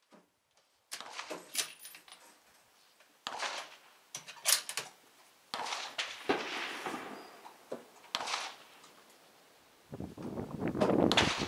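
Rifle shots on a covered shooting range, several irregularly spaced reports each with a short echo, then a louder, longer stretch of noise near the end.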